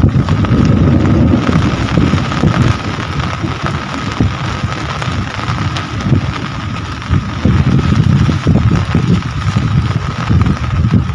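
Heavy rain falling, with a low uneven rumble that swells and dips and a thin steady tone above it.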